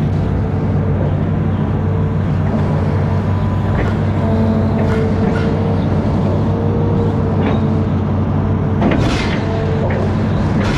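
Amphibious excavator's diesel engine running steadily under load, with a whine that rises and drops away several times and a few sharp knocks, the loudest about nine seconds in.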